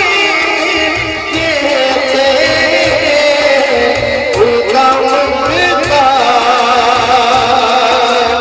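Male voice singing an Urdu naat into a microphone over a PA, with long ornamented held notes that waver in pitch, over a steady low beat.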